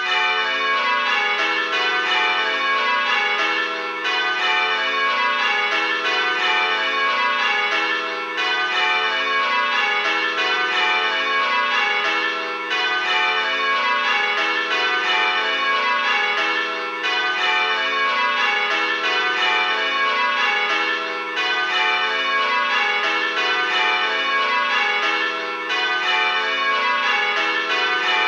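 Six tower bells from a bell-ringing simulator, struck one after another in a steady change-ringing rhythm. There is a short dip about every four seconds, the open handstroke gap of each whole pull.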